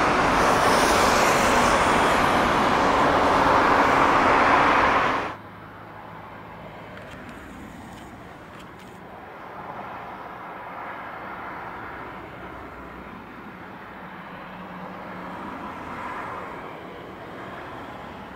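Boeing 747-8 jet engines at takeoff thrust, a loud steady rush that cuts off suddenly about five seconds in. After that, the much quieter steady hum of a 747-8 freighter's GEnx engines at low thrust, swelling slightly now and then.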